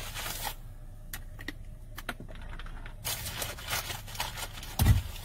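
Scattered light clicks and taps with some faint scraping, and a low thump just before the end.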